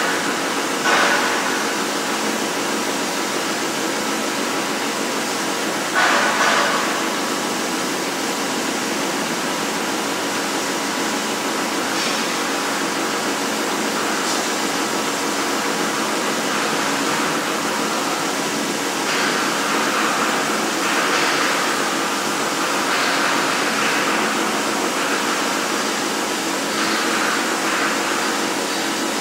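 CNC plasma cutter's torch cutting steel plate, a steady loud hiss, with a few short louder bursts in the first several seconds.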